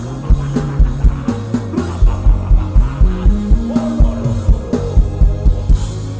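Worship band music with a steady drum beat over sustained bass notes.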